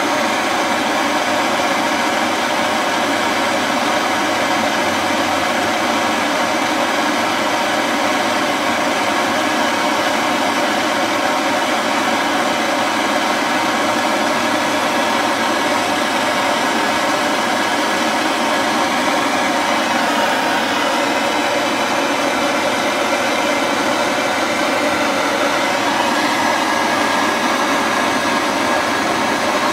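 Handheld QuickFire blow torch hissing steadily as its flame is held on a 3D printer hot end caked in hardened PLA, melting the plastic off.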